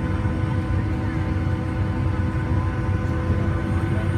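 Boeing 757-300 jet engines running steadily while the airliner taxis, heard inside the passenger cabin: a low rumble under a steady hum of several held tones.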